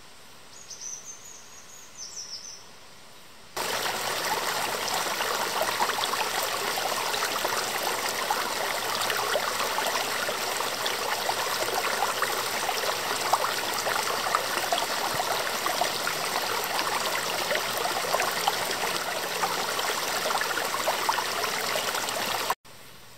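Small woodland stream trickling and splashing over rocks in a small cascade, a steady rush of water that cuts in a few seconds in and stops abruptly just before the end.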